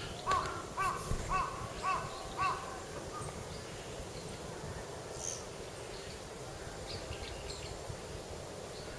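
A crow cawing five times in quick succession, about two calls a second, in the first few seconds; after that only faint outdoor background with a few faint high chirps.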